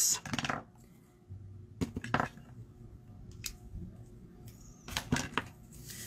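A few separate light clicks and knocks of small hard stamping supplies being handled and set down on a table, spaced a second or more apart.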